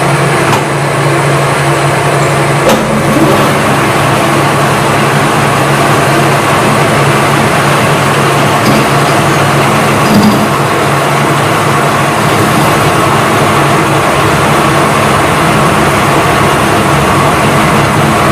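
Metal-cutting lathe running with a steady mechanical drone of motor and gearing and a low, even hum, with a faint knock or two.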